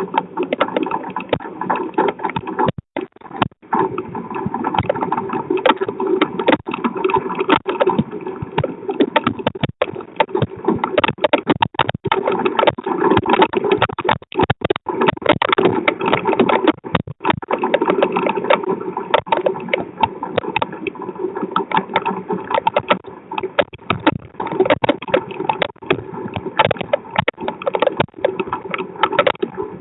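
Storm rain and wind hitting a driveway security camera, heard through its small microphone as a loud, steady crackling rush with many brief dropouts.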